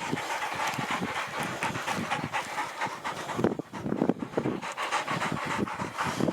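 A dog panting rapidly.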